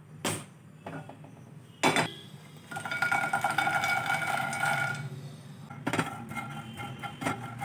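Makhana (fox nuts) poured from a steel bowl into a nonstick frying pan, a dense rattling pour with a ringing tone lasting about two seconds, then a silicone spatula stirring the dry nuts in the pan with light scrapes and clicks. Two sharp knocks come before the pour.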